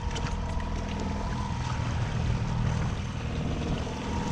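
Fishing boat's motor running steadily with a low hum, with a few faint clicks in the first half second.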